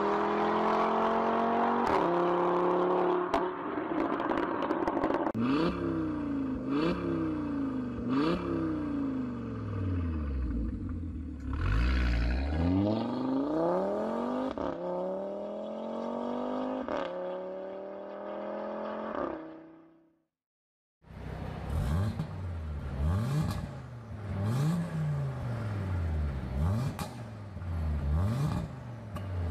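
Audi RS3's turbocharged 2.5-litre five-cylinder engine, first under hard acceleration with the pitch climbing and dropping through gear changes as the car drives by and away. After a moment's silence, the stationary car is revved in short blips, about one every second and a half, with its exhaust valves open.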